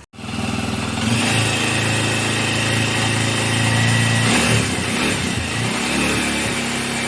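Honda CBX 250 Twister's single-cylinder engine starting up and idling steadily, its note unsettled for a moment about four and a half seconds in. It runs after reassembly, with the pin that was rubbing on the clutch basket gear ground down.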